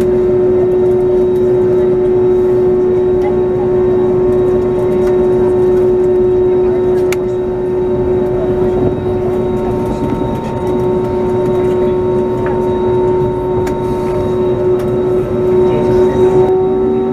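Airbus A321neo turbofan engines running at low taxi power, heard inside the passenger cabin: a steady whine of several held tones over a rushing hum. The tones shift slightly near the end.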